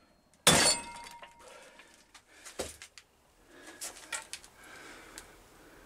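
A sledgehammer strikes the sacrificial nut on a Reliant rear hub shaft clamped in a vise: one sharp metal clang with a ringing tail about half a second in, as the shaft is driven out of its wheel bearing. A lighter knock follows a couple of seconds later, then a few faint clicks.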